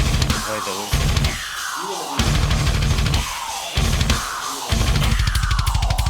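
Background rock music with heavy drums and bass, no singing, and a falling swoosh effect that repeats about once a second.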